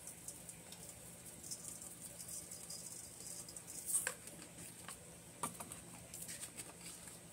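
Seasoning shaken from a shaker onto raw oxtails in a stainless steel bowl: a faint, fine pattering of granules, with two sharper clicks about four and five and a half seconds in.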